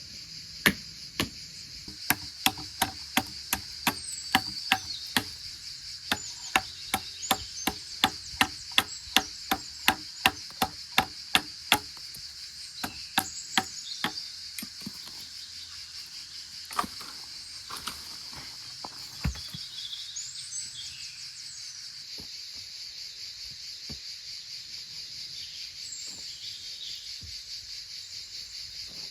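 A hand tool striking repeatedly, a quick run of sharp knocks about two to three a second that stops about halfway through, followed by a few scattered single knocks. Steady insect chirring runs underneath.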